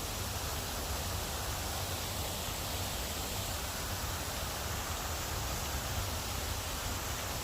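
Steady rushing hiss with a flickering low rumble: wind on the microphone of a walking camera.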